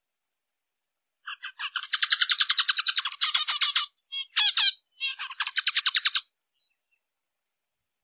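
Zebra finch vocalizing: rapid runs of harsh, chattering chirps in three bursts, starting about a second in and stopping about two seconds before the end.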